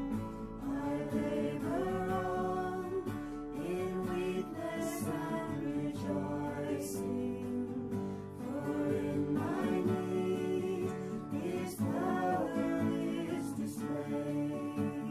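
A hymn sung with guitar accompaniment, in slow sung lines over steady held chords.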